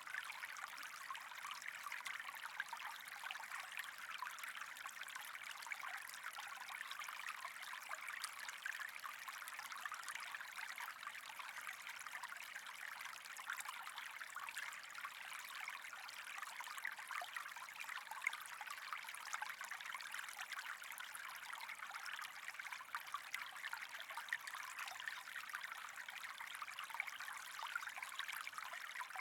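Steady trickling, running water, an even splashing hiss that does not change.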